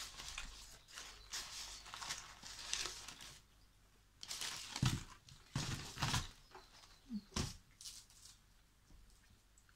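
Close-up eating sounds: a woman chewing a mouthful and working a lump of sticky rice in her fingers, in irregular soft crinkly bursts with a few sharp clicks.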